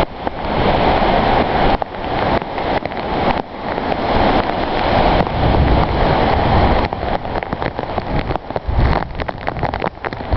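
Heavy rain and gusting wind in a storm: a steady rushing noise that swells and dips with the gusts, spattered with raindrop hits. Near the end the wind buffets the microphone with a low rumble.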